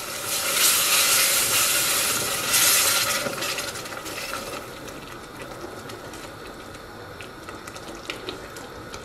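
Food frying in a stainless-steel saucepan, stirred with a wooden spoon: loud sizzling for about the first three seconds, then a softer sizzle with a few light clicks of the spoon against the pot.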